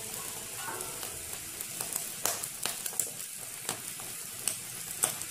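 Eggs frying in oil in a pan, a steady sizzle, with scattered clicks of a steel ladle against the pan as they are turned.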